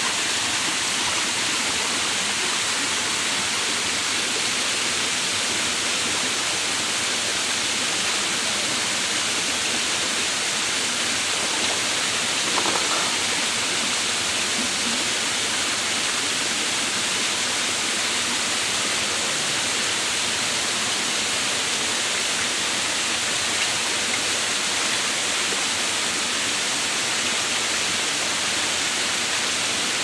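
Shallow rocky stream rushing over stones at a waterfall: a steady, even rush of water.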